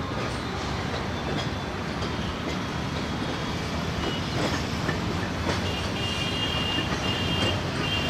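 EMD diesel locomotive running light over pointwork: a steady low engine rumble with scattered wheel clicks over rail joints and switches, and a thin high wheel squeal setting in about two thirds of the way through as it takes the curve.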